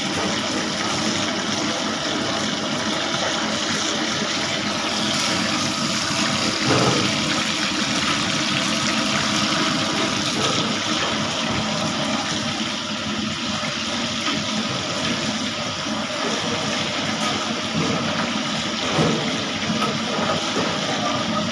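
Masala-coated fish steaks sizzling steadily as they shallow-fry in hot oil in a pan, with a couple of light knocks from utensils.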